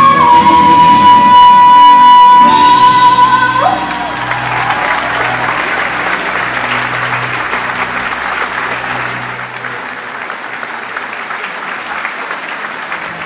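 A singing group and band hold the last note of a song, which cuts off about four seconds in. Audience applause follows, slowly fading.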